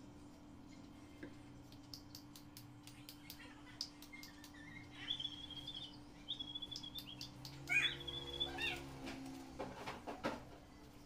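Steady low electrical hum from a small transformer wired to a motorcycle battery to charge it. Over the hum, through the middle, come a series of high chirping animal calls, the loudest about eight seconds in, along with scattered light clicks.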